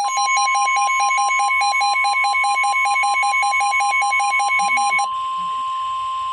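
Weather-alert tone: a steady high tone, matching the 1050 Hz NOAA Weather Radio warning alarm, with a faster beeping tone pulsing over it about five times a second. The beeping cuts off about five seconds in while the steady tone carries on.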